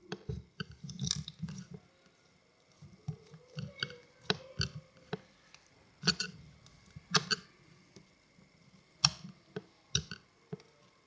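Slime being squeezed and kneaded by hand, giving short wet squelches and pops of trapped air in irregular clusters, the sharpest about six, seven and nine seconds in.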